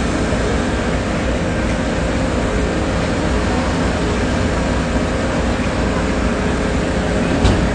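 Concrete mixer truck's diesel engine running steadily: a constant low rumble with a steady hum, mixed with street noise. A single short knock sounds near the end.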